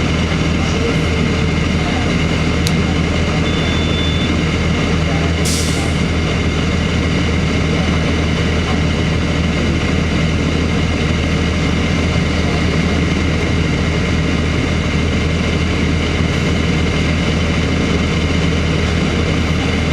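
Cummins ISC diesel engine of a 2002 Blue Bird CS transit bus running steadily with a low hum, with a click and a short hiss a few seconds in.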